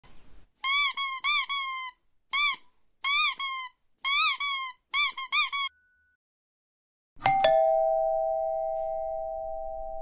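A rubber squeaky dog toy squeaked in quick runs of two to four squeaks, about fifteen in all. After a short pause a doorbell chime is struck and rings on, fading slowly.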